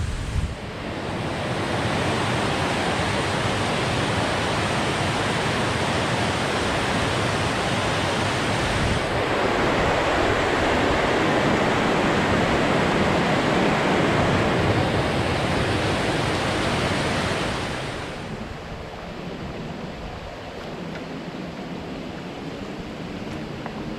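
River water pouring over a low concrete weir: a steady rushing that eases to a softer rush about three-quarters of the way through.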